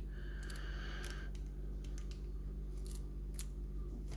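Small metallic clicks and scrapes of a lock pick being rocked back and forth inside an EVVA lock, over a steady low hum.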